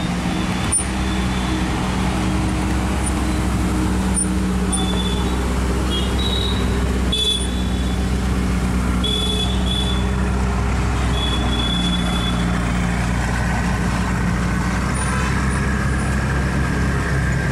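Supercar engines idling with a steady low rumble, and a few short high squeaks now and then.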